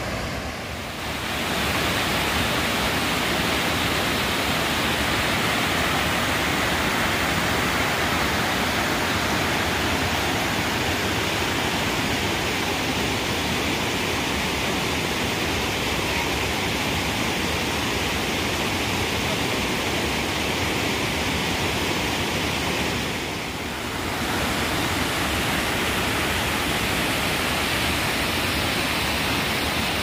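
Steady rushing of a river waterfall cascading over rock ledges, briefly quieter twice, at the start and about two-thirds of the way through.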